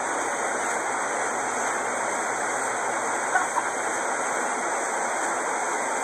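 Steady rushing of a waterfall, with a brief faint voice about three seconds in.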